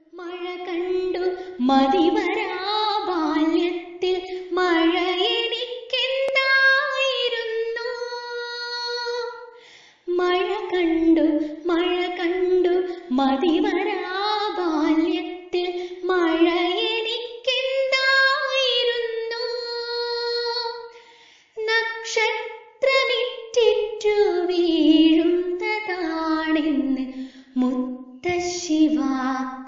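A woman's voice singing a Malayalam poem unaccompanied, in long, gliding, held phrases, with short breaths about ten seconds in and again about two-thirds of the way through.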